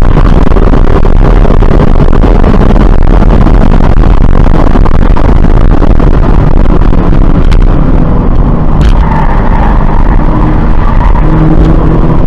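Loud in-cabin sound of a 2017 Subaru BRZ's flat-four engine pulling hard down a straight under heavy road and wind noise. About eight seconds in the car slows for a corner, the overall sound eases and the engine settles to a lower, steadier note.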